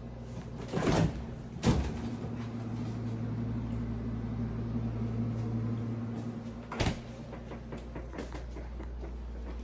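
Refrigerator door pulled open, with a short whoosh and a sharp click about a second in, then a low steady hum while the door stands open. The door shuts with a knock about five seconds later.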